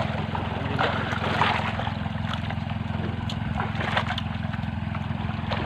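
Engine aboard an outrigger fishing boat running steadily with an even low hum.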